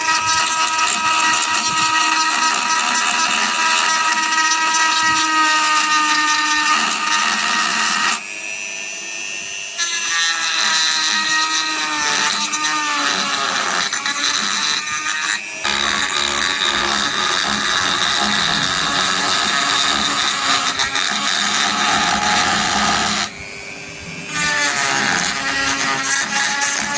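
A small power tool's motor running with a whine that holds steady, then shifts in pitch. The sound changes abruptly a few times, dropping away and starting again.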